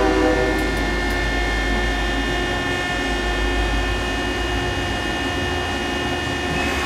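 Wasino WMC3 vertical machining center's table traversing on its X and Y axis servo drives: a steady multi-tone whine over a low hum. Some lower tones drop out about half a second in. The table movement sounds very, very tight.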